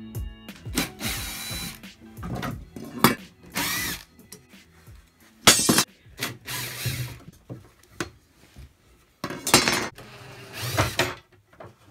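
Cordless drill run in several short bursts at a drawer slide inside a wooden dresser, its motor whine rising and falling with the trigger. Sharp clicks and clunks from the plastic tool case being opened and from handling come in between.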